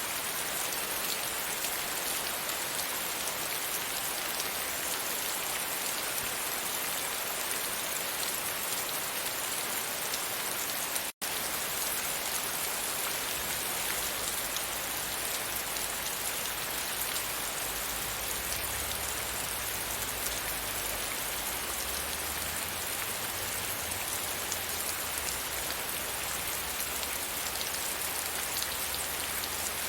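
Steady rain pattering against a window pane. There is a brief total dropout about 11 seconds in, and after it a low rumble runs underneath the rain.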